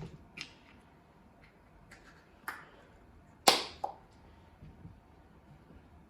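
A few scattered sharp clicks and knocks of tools and hard parts being handled, the loudest about three and a half seconds in.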